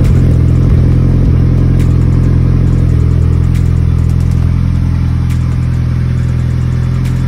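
Turbocharged 2.3-litre stroker 4G63 four-cylinder of a 2G Mitsubishi Eclipse Spyder idling steadily, heard close at its large exhaust tip.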